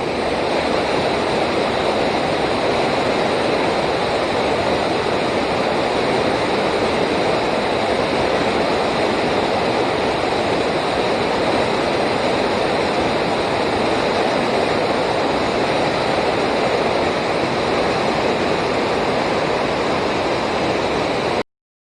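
Steady rush of river water pouring over rocks, an even noise that cuts off abruptly near the end.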